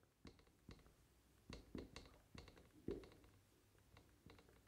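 Faint taps and short strokes of a marker on a whiteboard as words are written, several of them in the first three seconds, the one near three seconds the loudest.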